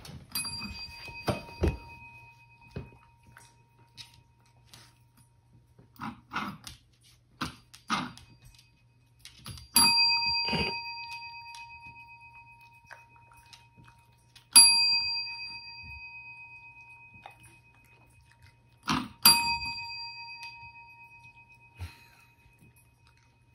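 A metal desk bell (service bell) rung by a dog several times, each ding sharp and then ringing on and fading over a few seconds. Soft knocks and taps fall between the dings.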